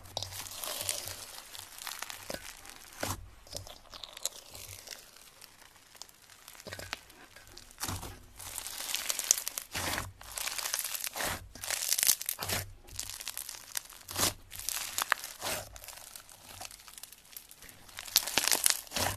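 Floam slime, slime packed with small foam beads, crunching and crackling as hands squeeze and press it, in irregular bursts. It goes fainter for a few seconds near the start, then crackles more densely in the second half.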